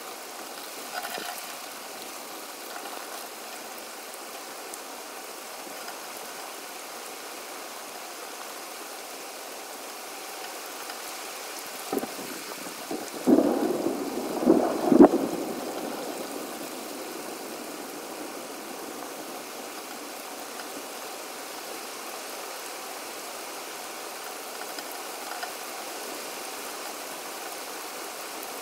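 Steady rain hiss in a thunderstorm, with a short cluster of thunder cracks about twelve to fifteen seconds in, the loudest near the end of the cluster. The sound runs at four times speed.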